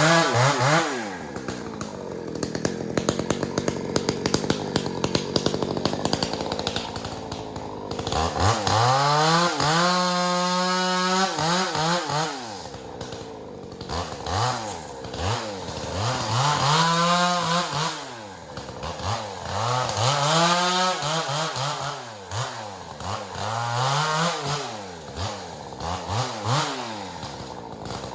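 Husqvarna 372XP two-stroke chainsaw with a custom tube muffler. For the first several seconds it runs steadily, then it is revved high and let fall back about five times.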